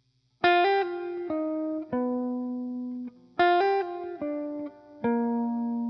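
Background music: a short phrase of plucked guitar notes, each ringing out and fading, played twice.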